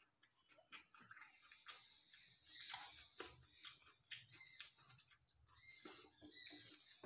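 Faint eating by hand: fingers mixing rice on steel plates, with chewing and lip smacks heard as scattered small clicks and wet smacks.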